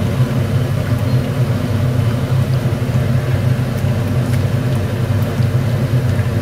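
Battered grass carp pieces deep-frying in hot oil, with a light sizzle and crackle. Over it runs a loud, steady low machine hum from the kitchen.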